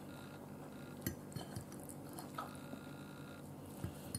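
A few faint clicks and light scrapes of a fork against a plate as food is gathered up, over a low steady room hum.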